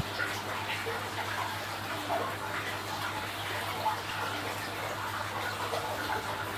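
Aquarium water circulating: a steady splashing, trickling wash of water from the tank's filter and pipework, with a steady low hum from the pump underneath.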